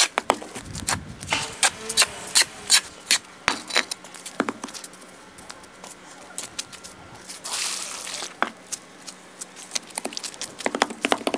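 Hand tools working brick and cement, giving irregular sharp taps and knocks in clusters, with a brief scraping rush about seven and a half seconds in.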